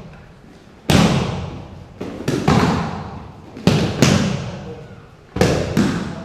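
Wrestlers dropping and landing hard on a foam wrestling mat: about seven sharp thuds and slaps, several in quick pairs, each echoing in the hall.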